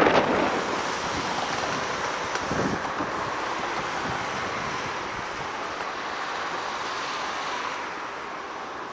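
Wind rushing over the microphone of a scooter riding along, a steady hiss that eases a little near the end.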